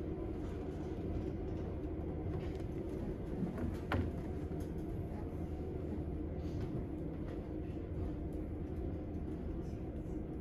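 Steady low rumble of background room noise, with a few faint knocks and one sharp click about four seconds in.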